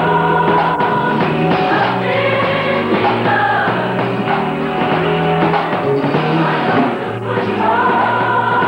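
Gospel choir singing with band accompaniment, voices holding long notes over a steady bass line.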